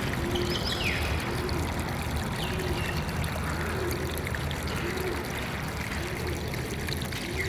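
Water flowing and trickling steadily, with bird chirps and short high calls now and then, and a low short note repeating about once a second.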